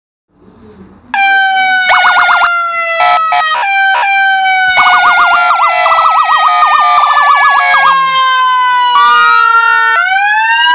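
Siren simulator app imitating a Federal Signal e-Q2B electronic siren. A Q-siren tone starts about a second in and slowly winds down in pitch. Rapid warbling yelp-like sweeps and short sharp blasts are layered over it, and new rising wail tones start near the end.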